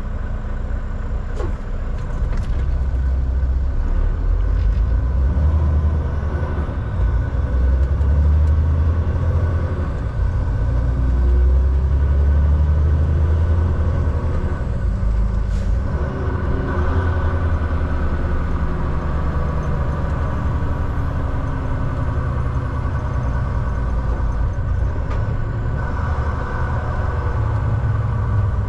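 Volvo VNL semi truck's diesel engine and road noise while driving, a heavy, steady low drone whose pitch drifts up and down as engine speed changes. A few faint clicks sound over it.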